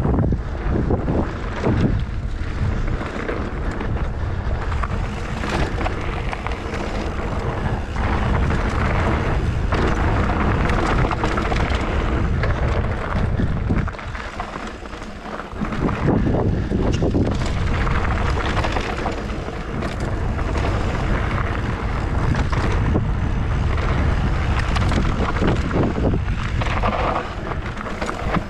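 Mountain bike riding down a rough dirt trail: wind buffeting the microphone over the rumble and rattle of the tyres and bike on the ground, with a brief quieter dip about halfway through.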